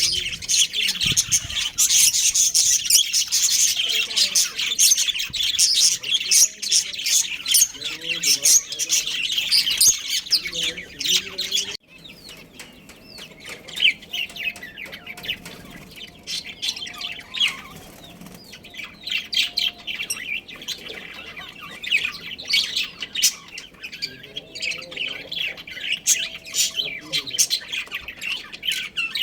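Budgerigars chattering and chirping, many fast high chirps overlapping. The chirping is loud and dense at first, then drops suddenly about twelve seconds in and goes on quieter and more broken.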